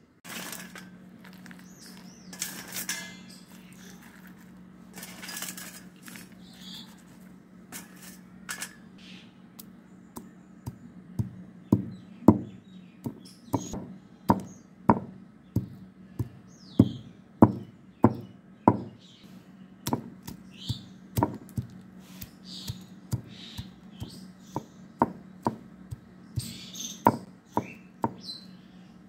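Roasted jackfruit seeds being crushed with a stone pestle on a flat grinding stone (shil-nora). Scattered clicks and scrapes come first as the seeds are laid out. From a little over a third of the way in, a regular knocking of about one and a half strikes a second sets in, over a steady low hum.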